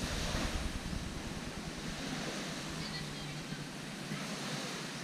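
Gentle surf washing onto a sandy beach, a steady hiss of water, with wind buffeting the microphone most strongly in the first second.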